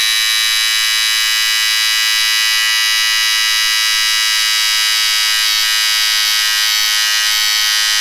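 A small electric bathroom appliance motor buzzing steadily and loudly.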